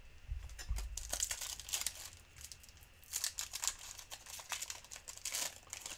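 Crinkling of plastic and foil packaging as trading card packs and cards are handled, in short rustling bursts, with a few soft thumps of things set down on the table near the start.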